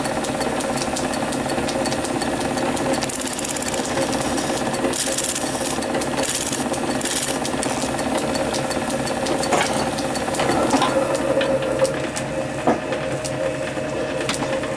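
Small metal lathe running steadily, a tool bit facing the end of a brass part spinning in the chuck. A hiss from the cut comes and goes about five to seven seconds in, and a few sharp ticks follow later.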